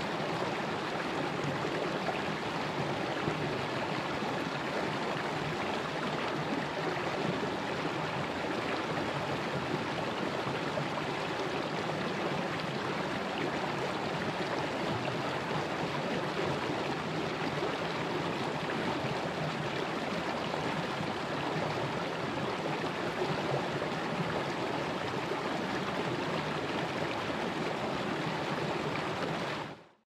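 Shallow mountain stream flowing over rocks, a steady rushing and gurgling of water that cuts off at the very end.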